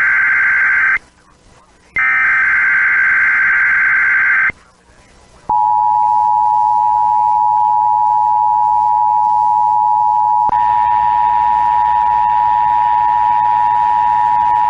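NOAA Weather Radio SAME header data bursts: the end of one and then a full burst of harsh digital warble. They are followed by the steady 1050 Hz warning alarm tone held for about ten seconds, with a hiss joining it about halfway through. This is a routine weekly test of the alert signal.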